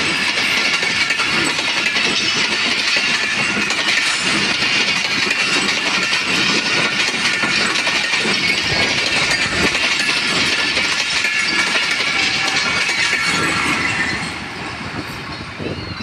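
Passenger coaches of a long train rolling past at speed: the steady noise of steel wheels running on the rails, loud throughout, then dropping off about two seconds before the end as the tail of the train goes by.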